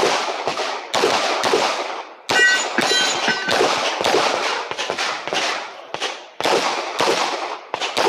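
Glock 17 9 mm pistol fired in a fast string of sharp shots, about two a second with short pauses. The shooting is a timed stage run, between the start command and the finish. About two and a half seconds in, a brief cluster of ringing tones sounds between the shots.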